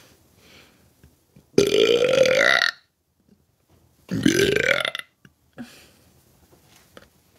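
A person burping loudly twice: two long belches, each about a second long and rising in pitch, the first about one and a half seconds in and the second about four seconds in.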